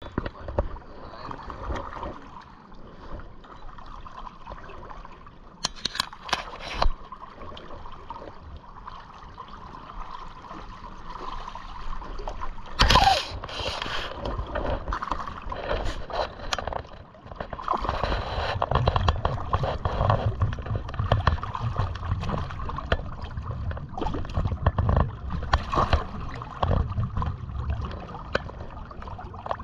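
River water splashing and lapping close to the microphone as hands work in the water and hold a landed American shad, with scattered small splashes and knocks. There is one louder splash near the middle, and the sloshing grows heavier over the last third.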